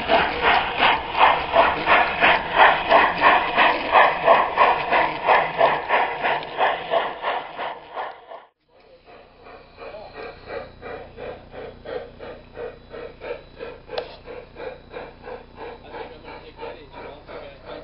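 Garden-scale model steam locomotive chuffing steadily, about three chuffs a second, heard close up from the camera car riding the train. About eight seconds in the sound cuts out briefly and returns quieter, the same chuffing now heard from beside the track.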